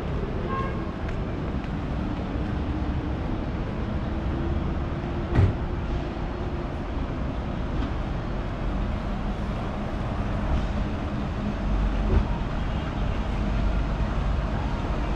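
Steady rumble of city street traffic, with a low hum that holds for a few seconds at a time. Two sharp knocks stand out, about five seconds in and again about twelve seconds in.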